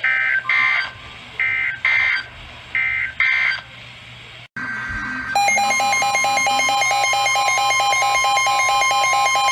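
NOAA Weather Radio end-of-message signal: three short pairs of warbling digital data bursts, about a second apart, marking the end of a severe thunderstorm warning broadcast. After a cut about five seconds in, a loud electronic alert tone starts and keeps repeating in a rapid on-off pattern.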